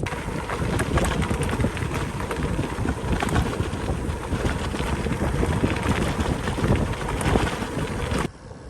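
Heavy wind rushing over the microphone while riding, a dense, even roar with scattered crackles; it cuts off abruptly near the end.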